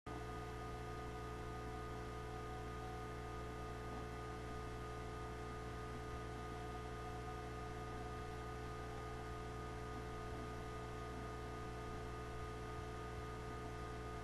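Steady electrical hum with hiss, holding several fixed tones and never changing.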